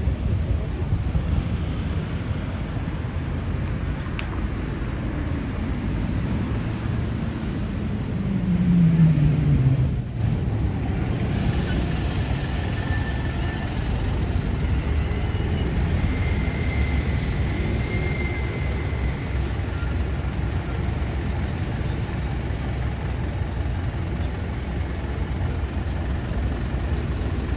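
City street traffic with a constant low rumble. About eight to ten seconds in, a passing vehicle's engine note falls in pitch as it goes by; this is the loudest moment.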